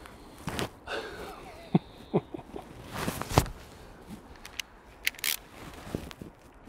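Hand work on engine ignition parts: clicks and knocks of plastic coil pack connectors and plug leads being handled and pushed on, with a short creaking squeak about a second in. A couple of sharp high clicks come later.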